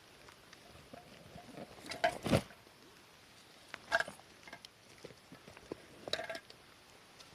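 A few short knocks and clatters from something being handled, in three louder groups about two seconds apart, with light clicks and rustles between.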